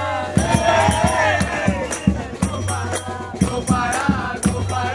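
A group singing a devotional chant together, led by a voice, over a quick even beat of hand claps and drum strikes, with high metallic ringing between the strikes.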